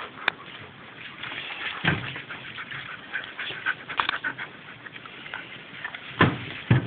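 Several dogs moving about right up against the phone, making irregular rustles and clicks, with heavy thumps about two seconds in and twice near the end.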